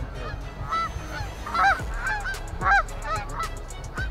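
A flock of Canada geese honking, several birds calling over one another in short calls that rise and fall in pitch, a couple each second.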